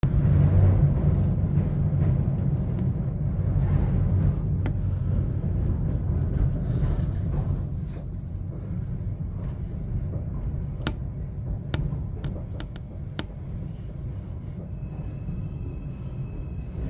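A train running over a steel truss bridge, heard from inside the carriage: a steady low rumble that eases off over the second half, with a few sharp clicks near the middle and a faint high whine coming in near the end.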